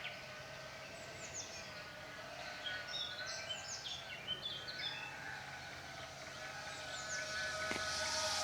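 Small birds chirping in quick, high, falling notes, over the faint wavering whine of FPV drone motors that grows louder near the end.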